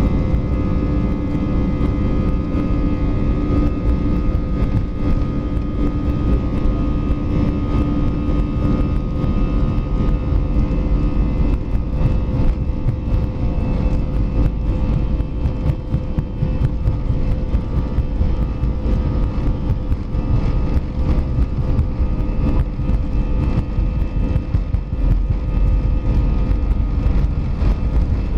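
Airbus A320 cabin noise while taxiing: the engines' steady hum at taxi power over a low rumble from the wheels, with a few held tones, one of which dies away about nine seconds in.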